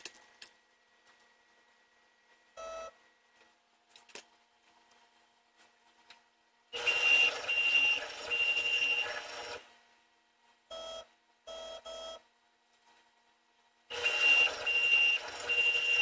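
Homemade two-axis CNC drill press working a wooden board. Stepper motors whine in short moves of a fraction of a second, and twice the turning drill bit bores into the wood for about three seconds; the boring is the loudest sound.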